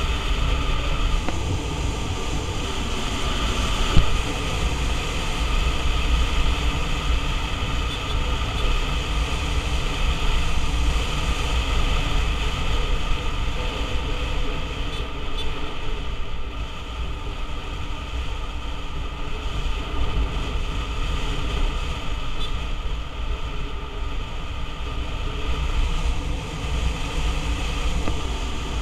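Wind buffeting a helmet-mounted camera's microphone while riding a motor scooter, with the scooter's engine running steadily underneath. A single sharp knock about four seconds in.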